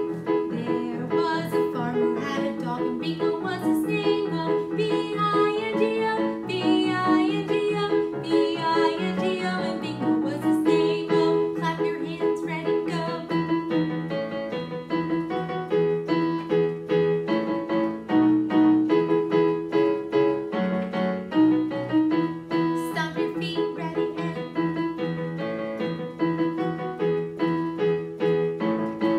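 Yamaha digital piano playing a chord accompaniment for a vocal warm-up, the chords changing every second or two.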